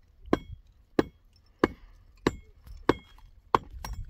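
Metal hammer striking concrete blocks in steady, even blows, about one and a half a second, each knock followed by a short metallic ring.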